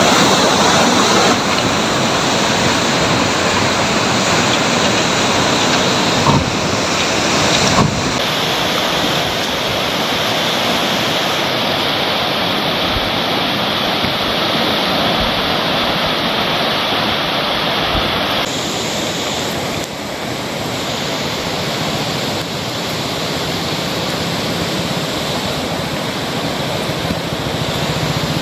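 Swollen river in flood, fast brown water rushing through and past barrage gates: a steady, loud roar of turbulent water. A couple of brief knocks come about six and eight seconds in, and the sound shifts slightly where the footage changes.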